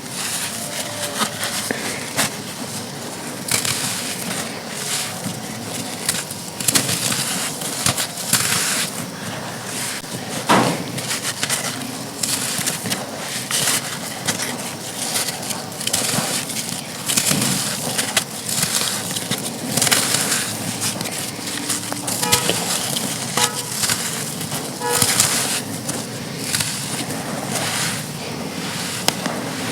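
Dry chunks of packed sand crumbling and being crushed, giving a continuous run of irregular crisp crunches, some sharper and louder than others.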